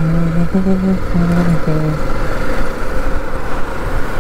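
Motorcycle engine running at a steady pitch, breaking off several times in the first two seconds, then giving way to wind and road rumble.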